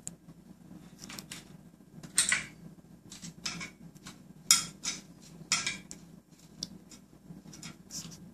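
Metal antenna mounting bracket clinking and scraping against the antenna as it is handled and fitted: a string of short, irregular clinks and scrapes, loudest a couple of seconds in and again around the middle.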